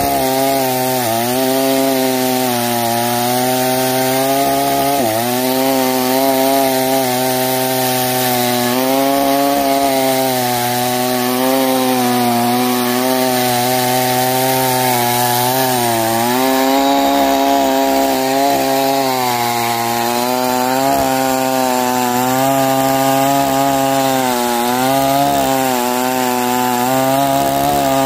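A new New West two-stroke chainsaw with a 22-inch bar cutting through a thick sonokeling (Indian rosewood) trunk, running steadily under load. Its pitch sags briefly a few times as the chain bogs in the cut.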